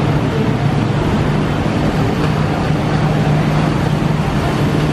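A steady low mechanical hum, like a small motor running, with an even hiss over it.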